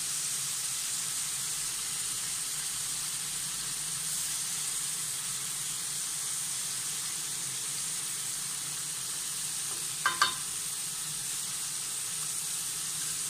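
Chicken tikka pieces sizzling steadily in ghee on a hot tawa, with two quick clicks of metal tongs about ten seconds in.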